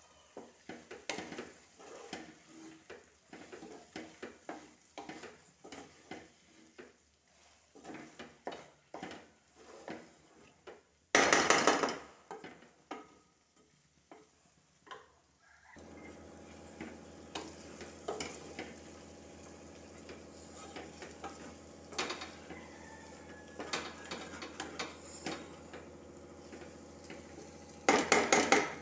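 Wooden spatula stirring and scraping okra and chilli powder around a metal pot as it fries, in a series of short strokes with some sizzling. Two brief loud bursts of noise come a little before halfway and near the end, and a steady hum sets in about halfway.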